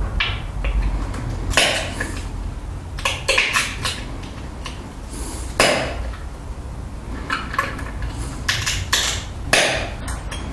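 Glass being pressure-flaked into an arrowhead: a series of sharp clicks, one every second or two, as small flakes snap off the edge under a hand-held pressure flaker.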